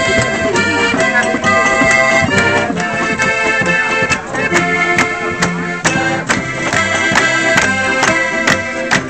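Button accordion and acoustic guitar playing an Alpine folk tune in an instrumental passage with no singing. The accordion's sustained chords and melody are the loudest part, over a steady strummed guitar rhythm.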